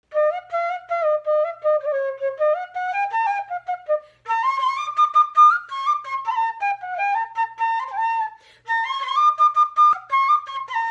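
Solo bamboo transverse flute playing a melody, the notes moving in small steps with short slides between some of them, broken by two brief pauses, about four seconds and eight and a half seconds in.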